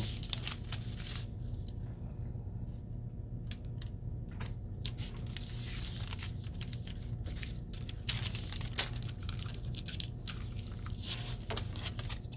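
Metal HVAC foil duct tape crinkling and crackling as a strip is handled and pressed down by hand onto a sign board. It comes as scattered sharp crackles, with one louder snap about two-thirds of the way through.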